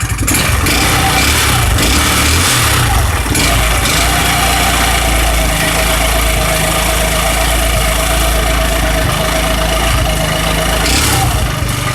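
Rebuilt 150cc GY6-type (157QMJ) four-stroke single-cylinder scooter engine, with freshly replaced crankshaft bearings, idling steadily without knocking or hard ticking. A thin steady whine sits over the engine noise through the middle stretch.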